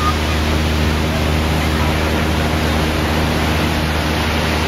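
Ocean surf breaking and washing ashore in a steady, unbroken roar of white water, with a faint low steady hum underneath.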